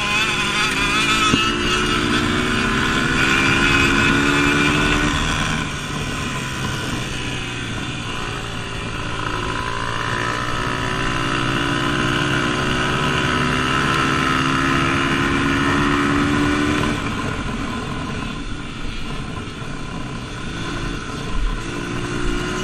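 Dirt bike engine heard close up from on board under hard throttle. It climbs in pitch as it accelerates, drops as the throttle is shut about five seconds in and again near seventeen seconds, then climbs once more near the end.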